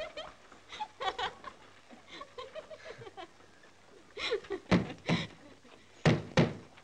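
Hammer striking nails to fix a paper poster to a wall: four sharp blows in two quick pairs in the second half, after soft laughing in the first half.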